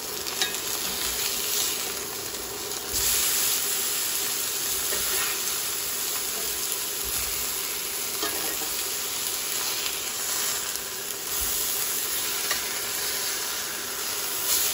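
Pork chops sizzling in oil in a hot cast iron skillet, as a steady hiss that gets louder about three seconds in. A metal spatula scrapes and taps against the pan now and then as the chops are turned over.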